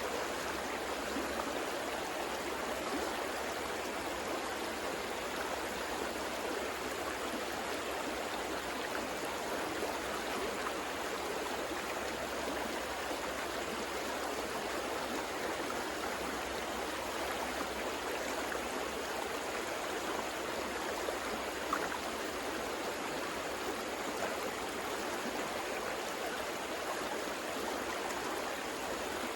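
River water rushing and burbling over rocks, a steady continuous flow.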